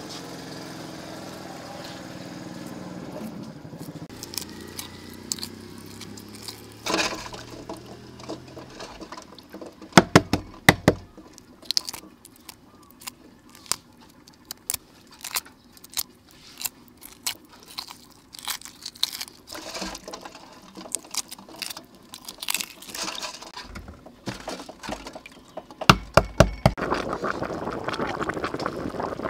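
Hard-boiled duck eggshells being cracked and peeled by hand over a bowl of water: scattered sharp clicks and crackles, with a loud cluster about ten seconds in. Near the end, a pot of curry bubbling.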